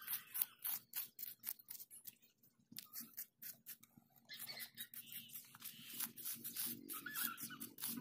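Metal spoon scraping and digging in coarse, shelly beach sand: a rapid run of short gritty scrapes and crunches, with a brief pause about two seconds in.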